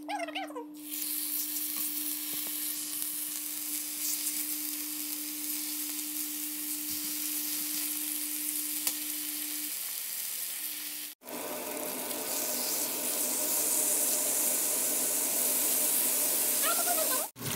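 Raw chicken breasts sizzling in hot olive oil in a nonstick frying pan, the sizzle starting about a second in, with a steady low hum beneath it until about ten seconds in. After a cut about eleven seconds in, the browning chicken fries with a louder sizzle.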